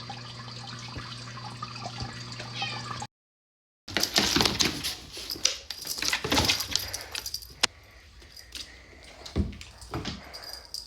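A steady electrical hum for about three seconds, then, after a short break in the sound, a run of irregular clatters, knocks and clicks, as of household objects being handled.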